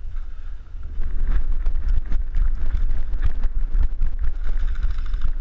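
Heavy wind and handling rumble on a GoPro Hero 3's microphone; from about a second in, a rapid, irregular run of sharp clicks and knocks comes over it.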